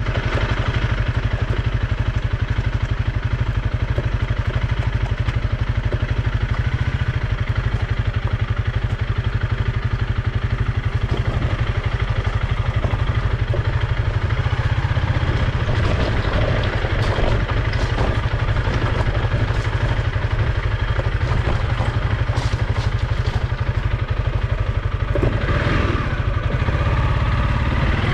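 Dual-sport motorcycle engine running at a steady, even pace, with no revving. A few light clattering ticks come through about halfway.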